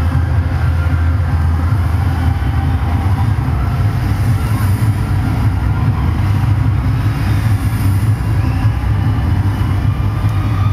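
Loud, steady rumble of a cheerdance routine's music and the crowd in a gymnasium, its heavy bass distorted on the camera microphone.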